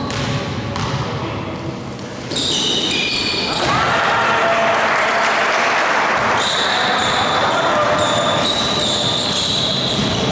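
Indoor basketball game sounds: a ball bouncing on a hardwood court, sneakers squeaking as players run, and players and spectators shouting in an echoing gym.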